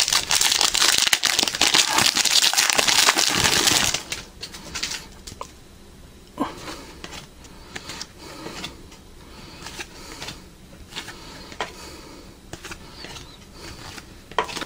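Trading-card pack wrapper crinkling loudly for about four seconds, then quieter light clicks and rustles of cards being handled.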